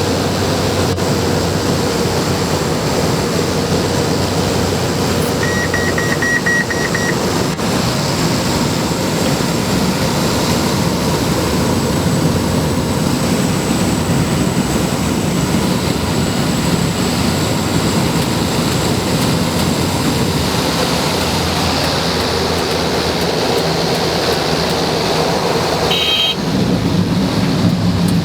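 Cessna 208B Grand Caravan's Pratt & Whitney PT6A turboprop engine and propeller running steadily in flight. A short series of high beeps sounds about six seconds in, and the sound changes abruptly near the end.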